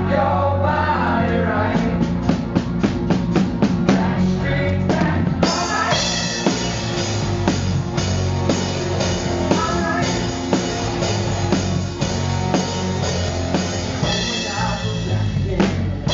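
Cover band playing live: a steady run of drum hits, about four a second, builds for a few seconds, then the full band with drums and bass comes in about five and a half seconds in.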